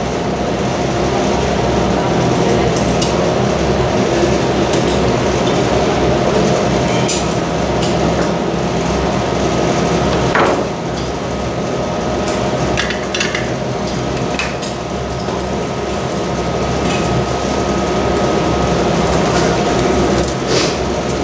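Workroom ambience: a steady hum of fans or extraction with several constant tones, and scattered small clicks, taps and clinks of hand tools being worked.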